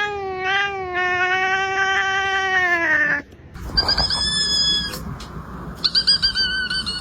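A cat's long drawn-out yowl held on one steady pitch for about three seconds, followed by two shorter, much higher-pitched calls.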